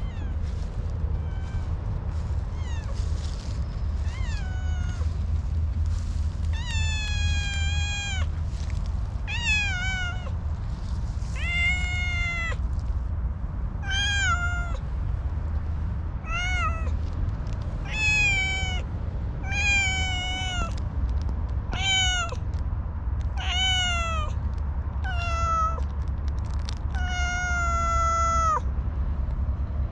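Orange tabby cat meowing over and over in a high, cute voice: a few faint short mews at first, then a loud meow every second or two, each rising and then falling in pitch. The last meow is drawn out the longest.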